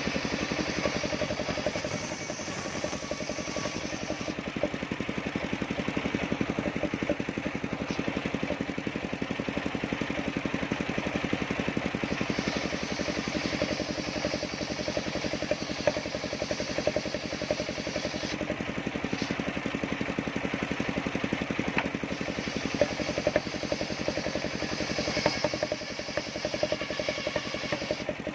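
Engine-driven circular sawmill running steadily, its blade sawing timber, with a higher hissing cutting sound that comes and goes several times.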